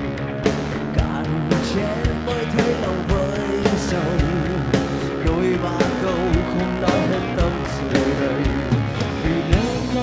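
Vietnamese pop-rock song: a male vocalist singing over band backing with a steady drum beat.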